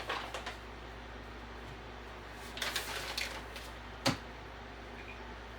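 Kitchen handling sounds: short clattering and rattling of things being moved about, with one sharp knock about four seconds in.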